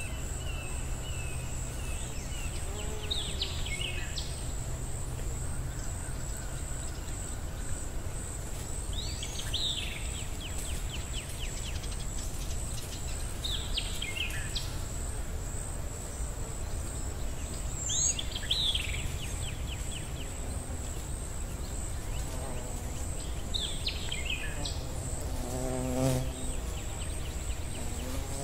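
Nature ambience: a steady high-pitched insect drone, with a short falling chirp every four to five seconds and a lower call near the end.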